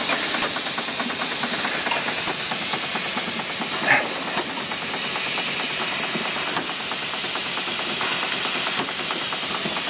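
Live-steam plant of a model steam boat running: a steady loud hiss of steam over a fast, light mechanical ticking from the Stuart 5A engine and the Southworth 12 steam feed pump, the pump working water into the boiler at low steam pressure. A short high chirp comes about four seconds in.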